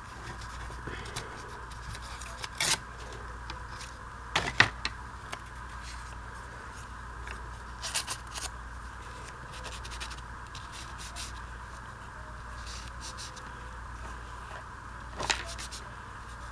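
Old book-page paper being handled at a craft desk: scattered scrapes and rustles with a few sharp clicks and knocks, the loudest about four and a half seconds in, over a steady electrical hum.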